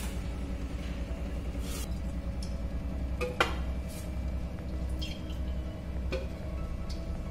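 Hot oil in an aluminium kadai on a gas stove, with mustard and cumin seeds giving about six short, sharp pops spread over several seconds, above a steady low hum.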